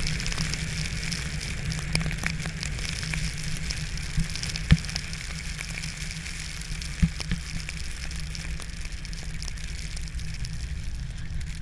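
Steady patter of precipitation on outdoor surfaces, a dense crackle of small ticks over a low steady rumble. A sharp knock sounds a little under halfway through, and a weaker one later.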